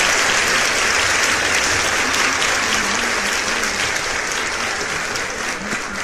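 Crowd applauding, a dense steady clapping that slowly fades.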